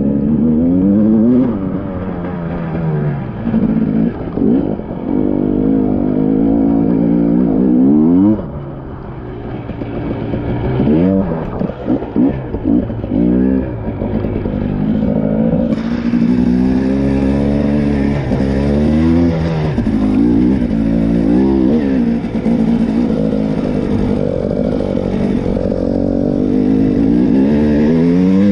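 TPI two-stroke enduro motorcycle engine being ridden hard on a trail, its pitch climbing and dropping again and again as the throttle is opened and shut, with a short let-off about a third of the way in.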